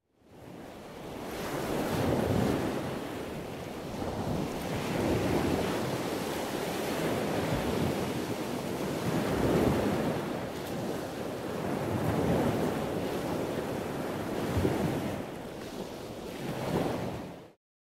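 Ocean surf washing in on a beach, a steady rush that swells and eases every few seconds. It fades in at the start and stops abruptly near the end.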